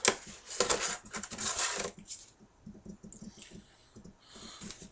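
Cardboard and plastic action-figure packaging being handled and rustled, with a sharp click at the start and a busy stretch of scraping and crinkling over the first two seconds, then only faint handling noises.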